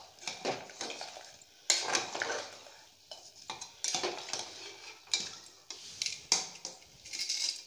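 A steel spoon stirring dal in an aluminium pressure cooker, scraping and clinking against the pot's metal sides and bottom in irregular strokes.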